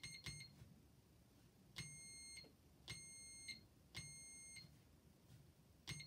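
Small electronic buzzer keyed by a hand-pressed switch, bleeping Morse code SOS in a high, steady tone: short bleeps at the start, three long bleeps about a second apart, then a short bleep again at the end. A faint click of the switch comes with each bleep.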